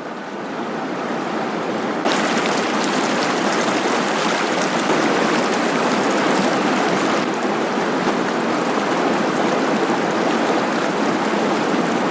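Rushing stream water. It fades in over the first two seconds, then runs steady and louder.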